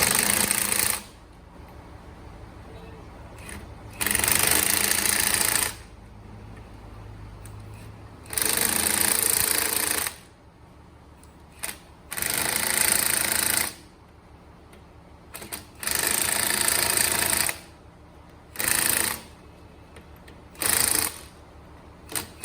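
Impact wrench hammering on shock absorber mounting nuts in repeated bursts of one to two seconds, about seven times, with short pauses between them.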